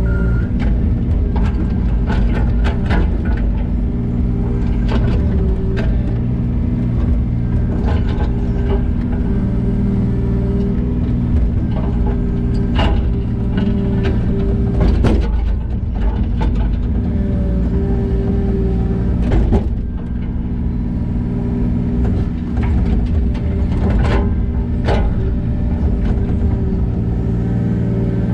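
Diesel engine of a working machine running steadily, with scattered knocks and clanks throughout.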